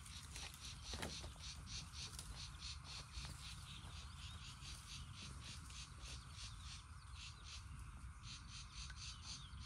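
Faint, steady rhythmic chirping of a calling insect or frog chorus, about four pulses a second, over a low steady hiss, with a single sharp knock about a second in.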